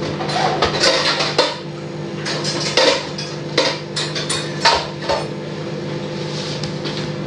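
Dishes and cutlery clattering and scraping as food is handled: a string of short knocks and scrapes over the first five seconds, then quieter, over a steady hum.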